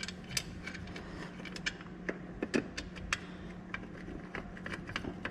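Irregular light clicks and taps of hands and tools working on a bolt in a car's engine bay, over a steady low hum.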